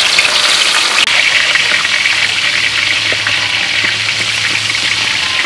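Fish frying in hot oil in a steel wok: a steady sizzle with fine crackling.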